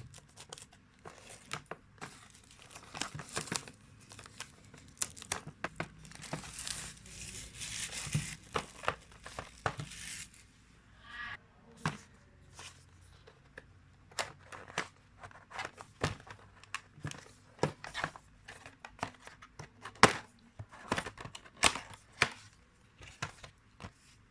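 Retail packaging of a Bluetooth headset being opened by hand: plastic wrap crinkling and tearing, with many sharp clicks and taps as the box is handled. A longer stretch of rustling comes about six to ten seconds in.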